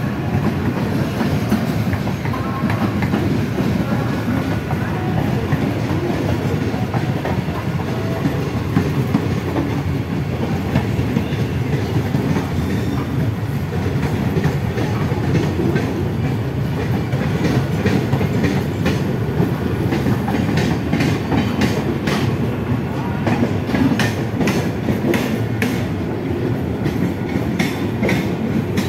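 Mumbai EMU local train running, heard from on board: a steady low rumble of wheels on rail, with rapid clickety-clack. The clicks come thicker in the last third.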